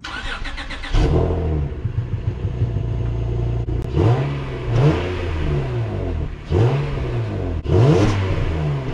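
2012 Acura TL's 3.7-litre V6 breathing through its stock J-pipe, catalytic converters and exhaust, running and revved up and down several times.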